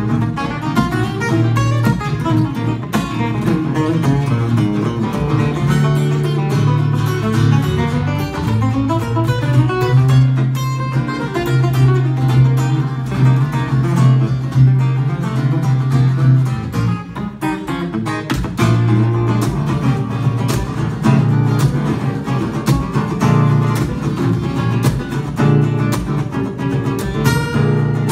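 Two steel-string acoustic guitars played together in a lively, busy duet of plucked notes over a steady bass line, with a few ringing high notes held near the end.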